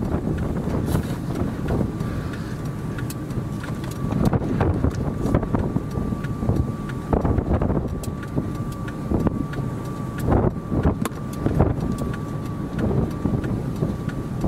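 Gusty wind buffeting the microphone, with frequent short knocks and a faint steady high tone from about a second in.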